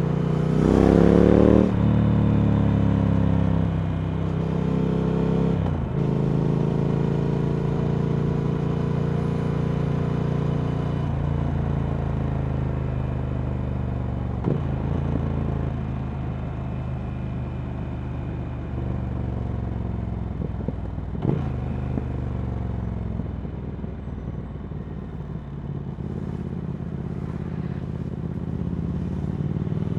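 Triumph Speed Twin 1200's parallel-twin engine running through a Vance & Hines slip-on exhaust while riding. The revs climb sharply about a second in, which is the loudest moment. The note then sinks slowly, broken by brief dips and short knocks, and rises again near the end.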